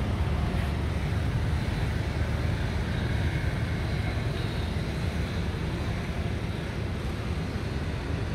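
Steady low outdoor rumble, even and without any distinct events.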